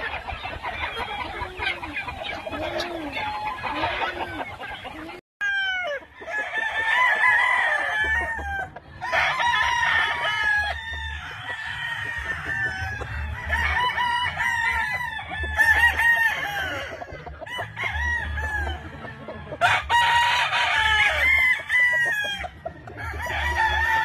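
Gamefowl roosters crowing again and again, several calls overlapping, with chickens clucking among them. After a short break about five seconds in, the crowing comes thicker.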